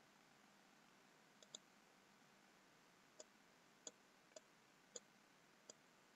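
Near silence broken by faint, sparse computer mouse clicks: about seven single clicks at uneven spacing, a quick pair of them about a second and a half in.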